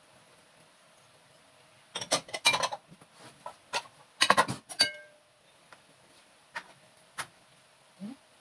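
Kitchen clatter of dishes and utensils: two quick bunches of knocks and clinks, the second ending in a short ringing note, then a few single taps.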